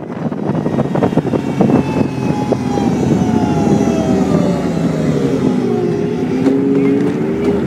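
Snowmobile engine running hard, heard close up from on board while it travels down a groomed ski slope. The whine slides down in pitch over several seconds, then levels off near the end.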